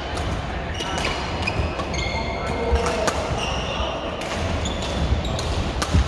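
Badminton rackets striking shuttlecocks across several courts, sharp pops at irregular intervals, mixed with short squeaks of court shoes on the hall floor and a low hum of chatter.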